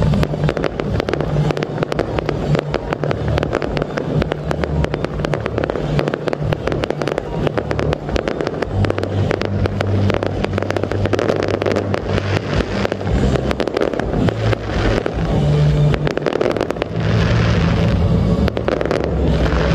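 Fireworks going off in a dense stream of rapid crackling pops, over a heavy low rumble.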